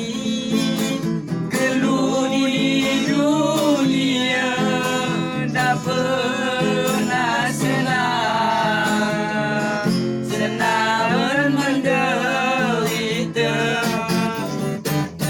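A solo voice singing a sustained, ornamented melody with vibrato, accompanied by strummed acoustic guitar.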